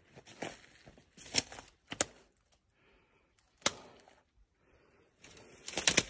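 A hiker's footsteps crunching over dry twigs, needles and rocks of a forest floor while walking downhill, with irregular sharp snaps. The steps go quiet for a couple of seconds in the middle, broken by one sharp crack, then pick up again near the end.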